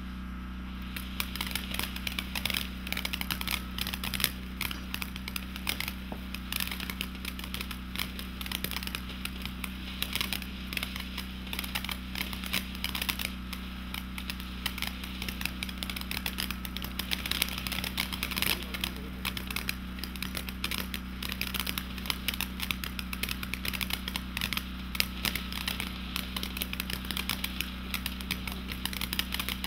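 Ground fountain firework spraying sparks and crackling stars: a dense, continuous crackle of many small pops that starts about a second in and keeps going.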